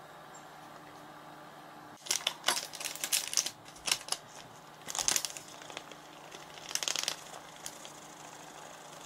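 Sugar and cocoa powder packets crinkling as they are handled and poured out, in irregular bursts from about two seconds in, fading out a little before the end.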